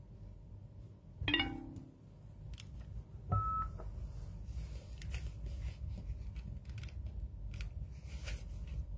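Short electronic beeps from a handheld device, one about a second in and a shorter single tone about two seconds later, followed by scattered light clicks and taps as it is handled.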